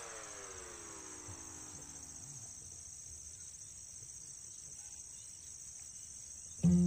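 Steady high-pitched insect chorus, as of crickets, shrilling without a break. A fading musical tail dies away in the first couple of seconds, and guitar music comes in near the end.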